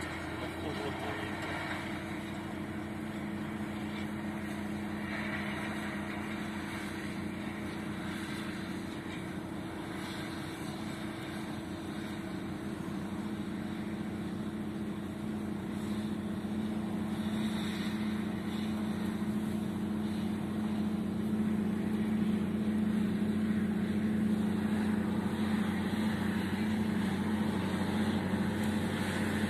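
Large four-wheel-drive tractor's diesel engine running at a steady pitch as it pulls a wide ring-toothed land roller across a field; the hum grows a little louder in the second half.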